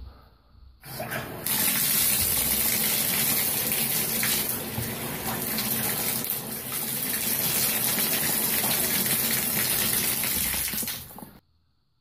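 Shower water running hard, turned on at a Delta single-handle valve about a second in and shut off abruptly near the end. It is a test run at full hot after the valve's temperature limit stop has been moved to allow hotter water.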